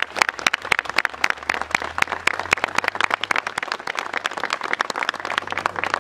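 A crowd applauding: many hands clapping in a dense, irregular patter.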